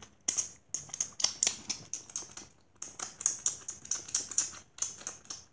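Close-up chewing and wet mouth sounds of someone eating juice-soaked cereal with his fingers: an irregular run of crackly crunches and smacks.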